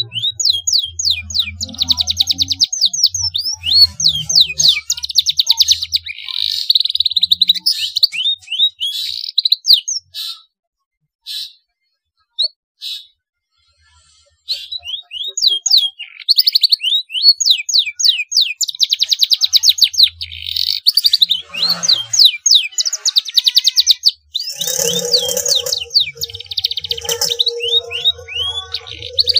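A young domestic canary singing blackthroat-style phrases: fast trills and quick down-slurred whistles in long runs, breaking off for a few seconds midway apart from a few short notes, then resuming. A low steady hum comes in near the end.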